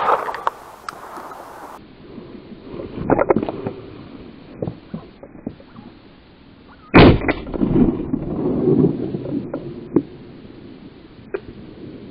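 A single shotgun shot about seven seconds in, very loud and sharp, followed by a rumbling echo lasting a couple of seconds. Smaller knocks and scuffs come from the hunter moving on the rocky slope.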